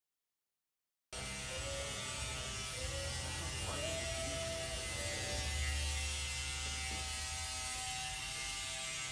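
A steady low electrical hum with hiss, starting abruptly about a second in after total silence, with its deepest part swelling and easing off in the middle.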